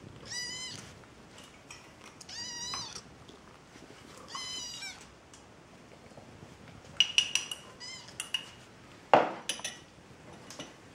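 A kitten makes three high, wavering mewing calls while eating. Later comes a cluster of sharp clicks, then a louder knock about nine seconds in.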